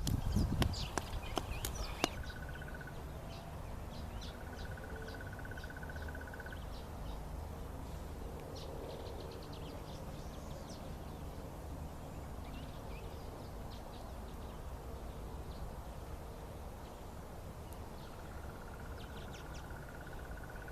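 Outdoor ambience of scattered bird chirps and an insect's rapid trill that comes and goes, over a steady low rumble. A few sharp knocks sound in the first two seconds.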